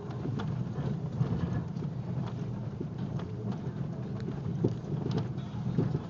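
Porsche Cayenne Turbo S driving slowly over rough dirt and gravel, heard from inside the cabin: a steady low rumble of engine and tyres with scattered knocks and rattles from the bumpy ground.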